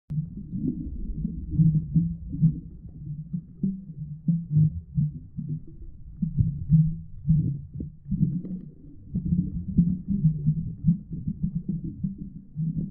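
Muffled low rumbling and sloshing of water heard underwater through a camera's waterproof housing, swelling and fading unevenly, with nothing above a low rumble getting through.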